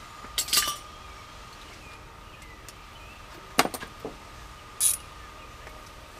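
Metal hand tools clinking and clattering as a socket wrench is picked up and handled: a burst of clinks about half a second in, a few more sharp clinks around three and a half to four seconds, and a short bright jingle near five seconds.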